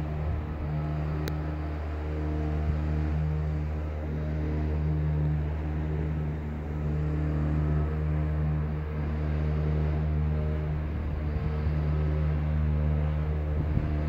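A steady low droning hum with several overtones: the unexplained drone in the sky of the kind called the 'sound of the end of times'.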